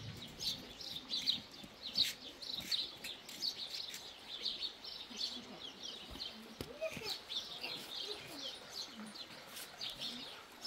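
Small birds chirping: many short, high chirps repeating and overlapping without a break, with a few faint clicks among them.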